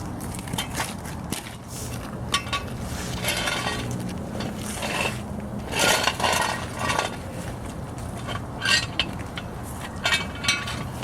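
Metal tools and car parts clinking and knocking at irregular intervals, some strikes ringing briefly, over a steady low hum, while working on a car during an oil change.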